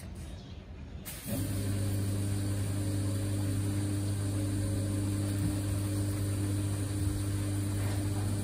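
Yamasu mini pressure washer's electric motor pump starts about a second in and runs steadily with a low hum, with a steady hiss over it.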